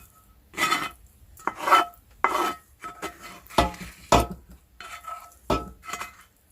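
A utensil stirring and scraping cooked ground beef and noodles together in cast iron cookware: a series of scrapes and knocks against the pot, about one every half second, each with a brief ring.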